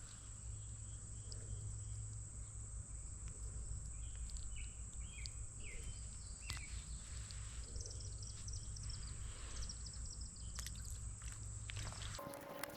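Outdoor ambience: a steady low rumble under a thin, constant high-pitched whine, with a few short bird chirps about four to six seconds in and some faint clicks.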